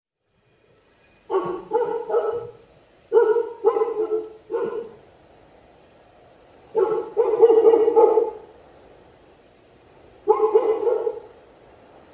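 Kangal shepherd dog barking in four bursts of several barks each, with pauses of one to two seconds between bursts.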